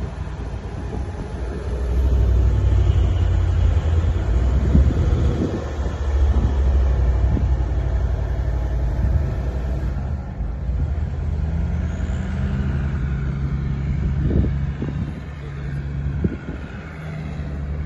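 4x4 engine running under load while driving slowly over rough off-road ground, its pitch rising about two-thirds of the way through, with a few knocks from the vehicle partway through.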